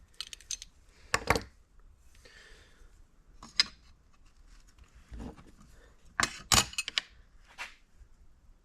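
Irregular short metal scrapes and clicks as a steel push rod is scored around its marked cut line with a hand tool. The loudest come about a second in and in a cluster around six to seven seconds.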